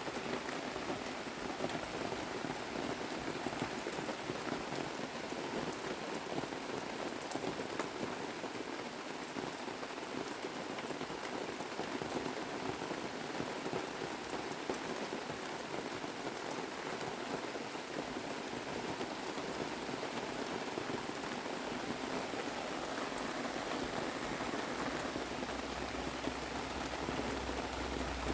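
Steady rain pattering on surfaces, with a low rumble building near the end.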